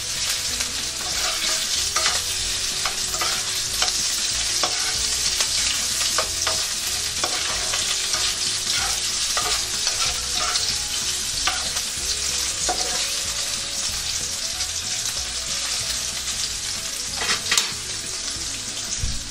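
Diced pork and sliced sausage sizzling steadily in oil in a frying pan, with the scrape and knock of a spatula stirring them, a louder clatter of knocks near the end.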